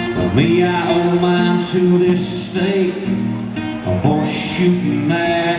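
A man sings a slow country song live to his own strummed acoustic guitar, with long held, gliding vocal notes.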